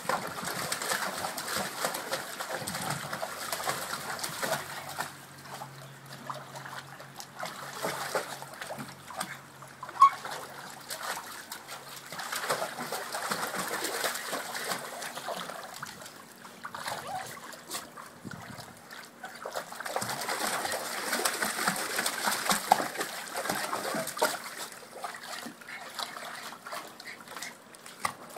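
Water splashing and sloshing in a plastic kiddie pool as two small dogs paddle and play in it, coming and going in irregular waves. A single sharp, loud sound stands out about ten seconds in.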